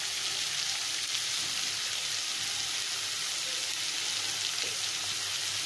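Sliced onions frying in hot oil in a kadai, giving a steady, even sizzle.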